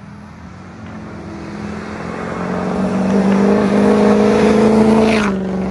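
Built Ford 6.0 Powerstroke diesel pickup with a 10-blade KC turbo accelerating towards and past, its engine and turbo growing steadily louder. About five seconds in it goes by, and the pitch and level drop sharply.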